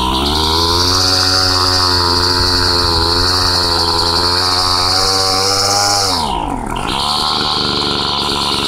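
Old Homelite two-stroke chainsaw engine idling cold while it warms up after a cold start. Its speed holds steady, then sags sharply about six seconds in as if about to stall, and recovers. The unsteady idle is, to the owner, a carburetor needing its idle adjusted.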